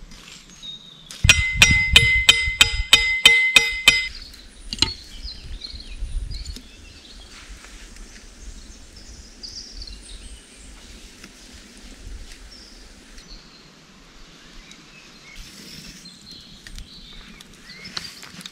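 A quick run of about eight metallic clinks, each ringing briefly, about a second in and lasting some three seconds. After it comes a low outdoor background with faint high chirps.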